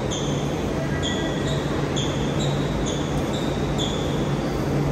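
Short, high sneaker squeaks on a hardwood sports-hall floor, about two a second, over a steady low hum from the hall's ventilation.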